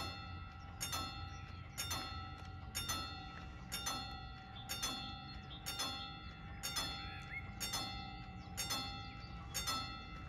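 Level-crossing warning bells striking about once a second, each stroke ringing on, as the Fü60 crossing warns of an approaching train before its barriers come down.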